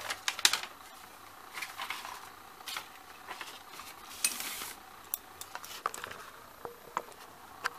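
Light clicks, taps and short rustles of small objects and paper being handled on a worktable, with a longer rustle about four seconds in.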